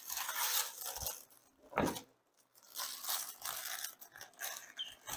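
Plastic wrap rustling, crinkling and tearing as it is handled, with a couple of dull knocks about one and two seconds in.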